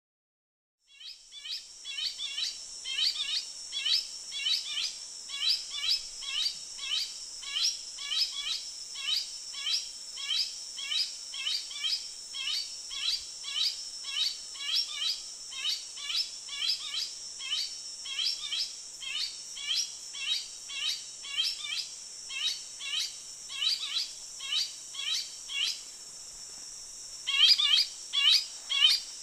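Finsch's bulbul calling: a long run of short, downslurred notes, about two a second, over a steady high insect drone. The calls pause briefly near the end, then come back louder.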